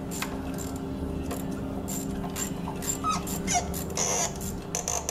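Stuck glow plug being worked back and forth in a BMW N47 diesel's cylinder head: irregular metallic clicks from the tool with a few short squeaks from the seized threads a little after the middle.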